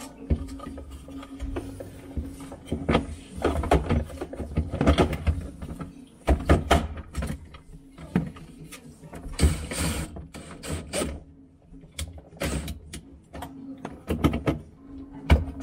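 Irregular clicks, knocks and rattles of a refrigerator's plastic evaporator fan cover being handled and pressed into place.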